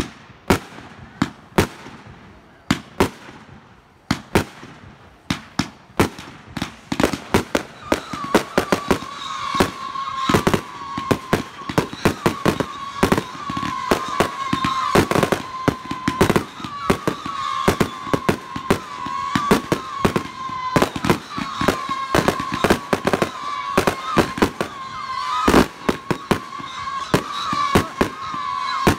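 Consumer aerial fireworks firing: sharp launch reports and bursts, a few at first, then a rapid barrage from about six seconds in. A steady, slightly wavering whistle runs under the barrage from about eight seconds on.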